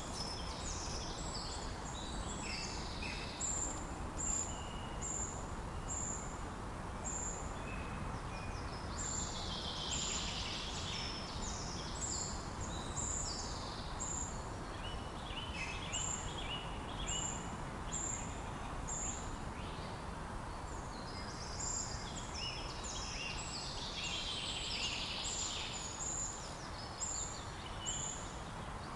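Several woodland songbirds singing at once over a steady low rushing background. One bird repeats a short, very high note about once a second. Longer songs falling in pitch come twice, near the middle and near the end.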